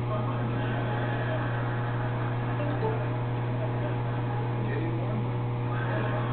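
A steady low hum at an even level, with faint indistinct sounds above it.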